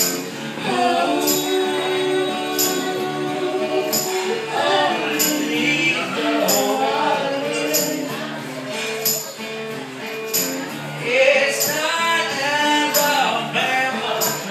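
A small live band plays a song: a man and women sing together over keyboard and acoustic guitar. A jingling, tambourine-like hit keeps a steady beat.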